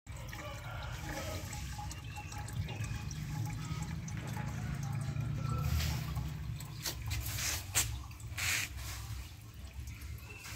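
Tap water running from a plastic pipe into a metal kettle, a steady stream splashing as the kettle fills. A few short louder rushes of noise come between about six and nine seconds in.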